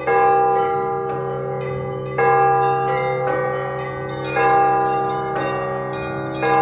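Russian Orthodox church bells being rung: a heavy bell struck about every two seconds, with smaller bells struck in quick patterns between its strokes, all ringing on over a steady low hum.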